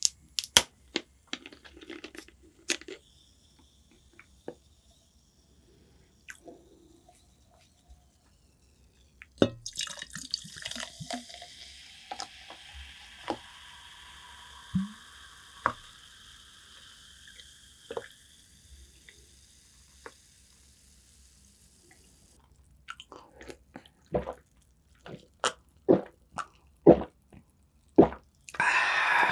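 Plastic bottle of clear carbonated soda handled with a few sharp clicks, then poured into a glass. The soda fizzes with a steady hiss for about twelve seconds as the bubbles fade. Near the end come sharp clicks and gulps as it is drunk from the glass.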